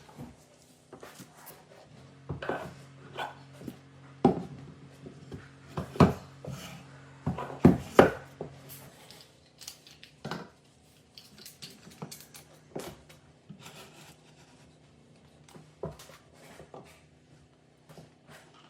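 Woodworking knocks, taps and scrapes on wood, irregular, with the loudest knocks in the first half and a low steady hum under them for several seconds.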